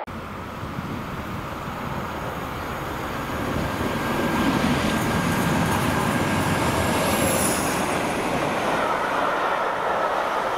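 A Class 47 diesel locomotive hauling passenger coaches through a station at speed. The engine and wheel rumble grows as it approaches and passes, and a thin high whine slides down in pitch about seven seconds in.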